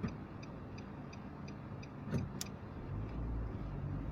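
Car's turn-signal indicator ticking evenly, about two to three ticks a second, over the steady low rumble of engine and road noise inside the cabin. There are a couple of sharper knocks at the start and about two seconds in.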